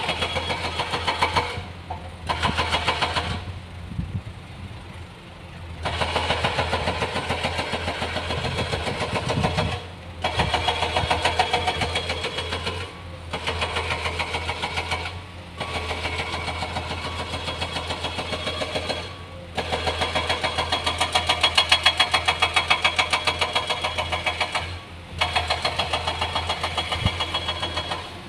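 Heavy diesel earthmoving machinery at work: a fast pulsing mechanical beat that runs in bursts of a few seconds, broken by short pauses, with a longer pause about four seconds in.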